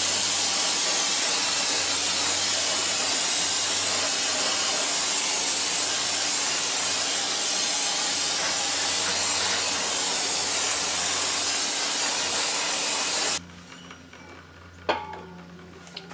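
Aerosol can of brake cleaner spraying onto a drum brake assembly in one long continuous hiss that cuts off suddenly about thirteen seconds in. A short knock follows a moment later.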